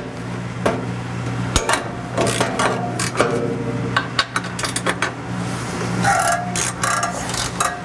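Hand wrench working the bolts on a Subaru Forester's exhaust mid-pipe flange to loosen them, with a run of sharp metal clicks and clinks from tool on bolt and some short metallic ringing near the end, over a steady low hum.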